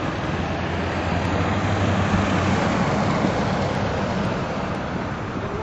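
A motor vehicle driving past on the road, its engine hum and tyre noise swelling over the first few seconds and then fading.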